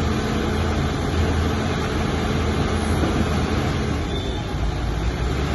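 Heavy diesel engine running steadily with a constant low drone.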